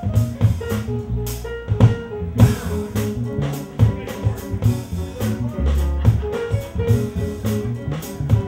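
Live jazz-funk band playing an instrumental passage: a bass line on an electric upright bass, a steady drum-kit groove and electric keyboard chords.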